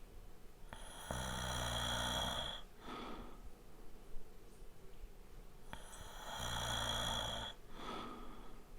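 A man snoring lightly: two snores, each a rattling breath in of about two seconds followed by a short, softer breath out. A brief click comes about four seconds in.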